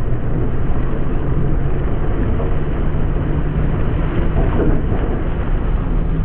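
Tractor engine running steadily under load as it pulls a He-Va subsoiler, a constant low drone, mixed with the rushing and scraping of the subsoiler leg tearing through soil and crop stubble.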